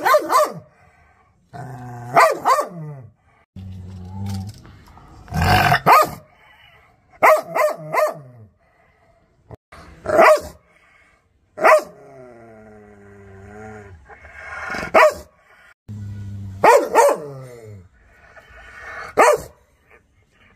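Rottweiler growling and barking aggressively: long low growls broken by about a dozen sharp barks, some in quick runs of two or three.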